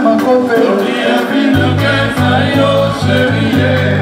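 Live band playing with a male lead singer and backing vocalists singing. A bass line comes in about a second and a half in, playing rhythmic low notes under the voices.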